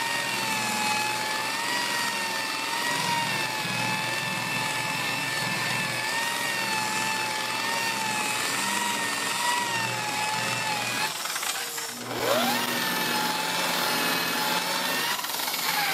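Warrior 7-inch variable-speed rotary polisher with a wool pad, buffing compound into sanded clearcoat. Its motor gives a steady high whine that wavers slightly as the pad is worked over the panel. About 11 seconds in it spins down, then winds back up a second later as buffing resumes at the door edge.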